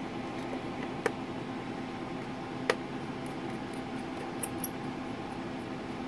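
Small screwdriver working a screw into a laptop's drive-bay caddy: two sharp clicks about a second and about two and a half seconds in, then a few fainter ticks, over a steady background hum.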